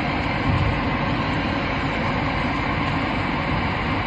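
Lennox 90% condensing furnace's combustion-air inducer motor running steadily during the pre-purge before ignition, with condensate water heard draining inside.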